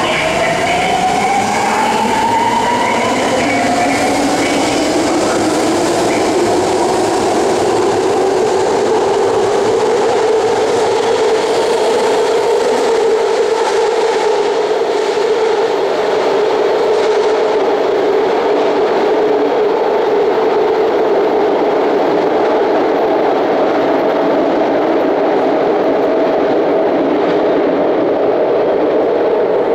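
Ten-car BART train pulling out of an underground station: its electric propulsion whines upward in pitch as it accelerates over the first few seconds. The sound then settles into a steady hum and rumble carried back along the tunnel as the train moves away.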